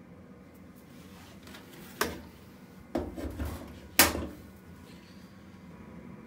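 Three sharp clunks of the Nortec Primus P6 commercial washing machine's fittings being opened and shut by hand, about two, three and four seconds in, the last the loudest.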